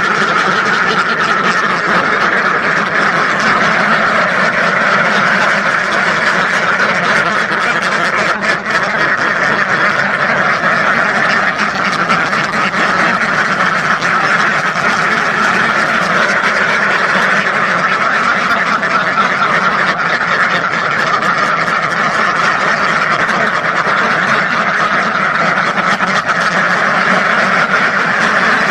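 A large flock of domestic ducks quacking continuously, hundreds of overlapping calls merging into a steady, dense din.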